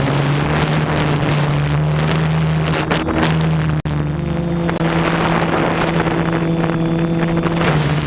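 DJI F450 quadcopter's electric motors and propellers humming steadily, heard from the camera on board, with wind noise on the microphone. The hum's pitch steps slightly a few times, and the sound cuts out for an instant about four seconds in.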